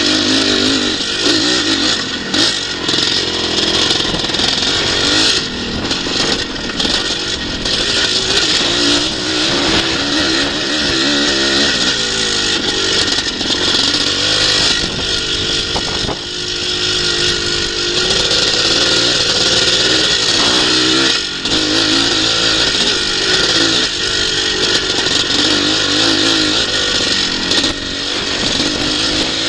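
Twinshock motocross bike's engine, close by, revving up and dropping back over and over as it is ridden hard round a dirt scramble track, its pitch rising and falling with the throttle and gear changes.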